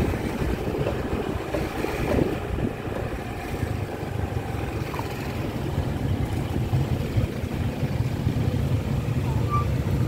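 Street traffic noise with wind rumbling on the microphone while moving along the road; the low engine hum builds over the last few seconds as traffic bunches up at a light.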